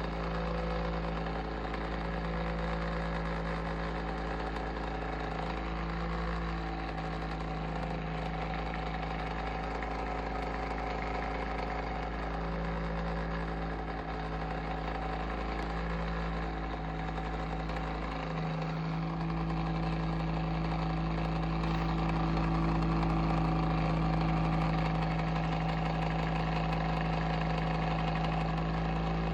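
Bionaire ceramic tower heater running with an abnormal noise: a steady low hum with a fluttering buzz over it. About two-thirds of the way through, the hum dips briefly and then comes back louder.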